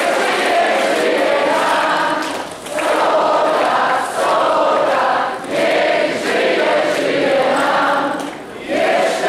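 A large group of people singing together, in long phrases with short breaks between them.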